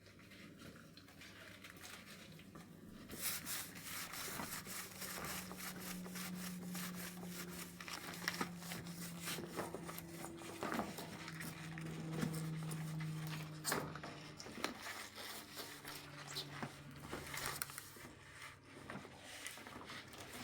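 Crinkling and scraping with many irregular clicks and knocks, over a low steady hum that comes and goes.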